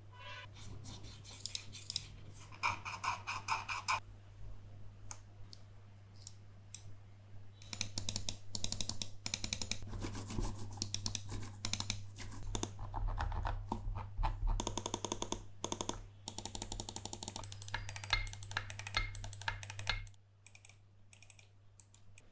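Logitech G102 Lightsync gaming mouse being clicked in quick runs of many sharp clicks, densest through the middle, with a low steady hum underneath that cuts off near the end.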